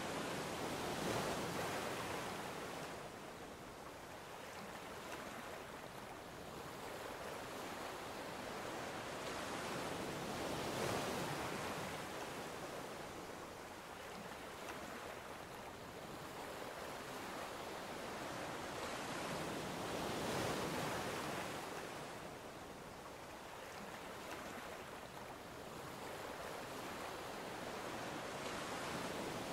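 Ocean surf breaking on the shore: a steady rushing wash that swells louder roughly every ten seconds as each wave comes in.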